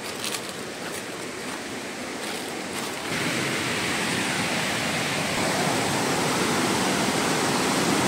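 Shallow rocky river rapids rushing steadily. The sound gets louder and brighter about three seconds in, then keeps building slowly as the river is approached.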